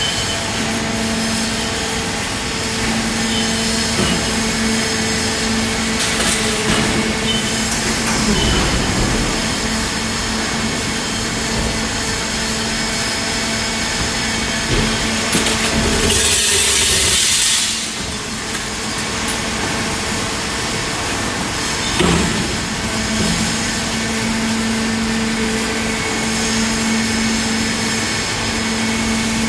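Hydraulic baler shear's power unit running with a steady hum. Just past halfway a burst of hissing lasts about two seconds, and a few seconds later a single sharp knock.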